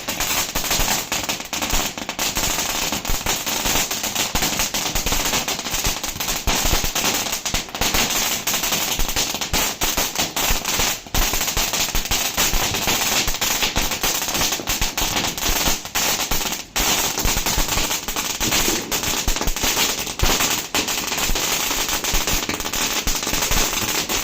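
Starvell Lolli Pop firework going off: a dense, continuous rattle of rapid small pops and crackles, with a couple of brief lulls midway.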